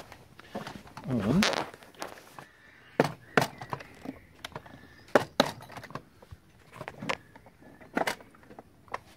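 Sharp plastic clicks and knocks, about eight spread over several seconds, as the clips on the plastic housing of a Steinbach battery pool robot are undone to take off its lid. A short wordless vocal sound comes about a second in.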